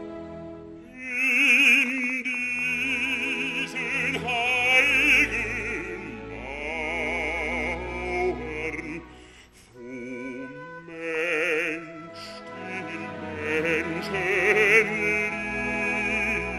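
A male opera singer singing with strong vibrato over orchestral accompaniment, with a short break in the phrase about ten seconds in.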